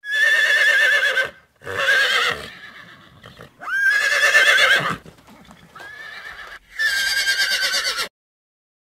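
Horses neighing: about five whinnies in a row with short gaps between them, each with a quavering, wavering pitch. The fourth call is noticeably quieter than the others.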